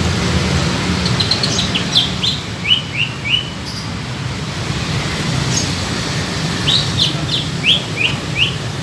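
Cucak ijo (green leafbird) singing: two quick phrases of short, downward-slurred whistled notes, about a second in and again near the end, over a steady low rumble.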